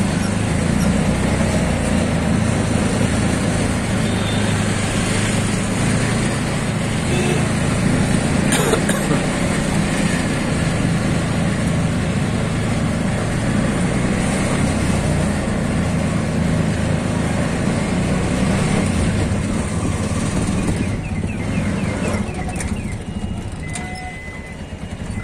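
Auto-rickshaw engine running steadily under way, with road noise, heard from inside the open passenger cabin. It grows quieter over the last few seconds as the rickshaw slows.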